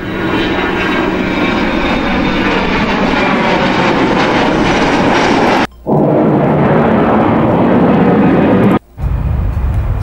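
Free stock sound-effect previews of jet aircraft played one after another: a fast jet engine flying over, with a whine over its rumble, cut off suddenly about six seconds in. A jet plane arriving at an airport follows, also cut off abruptly near nine seconds, and then a third aircraft clip starts with a heavier low rumble.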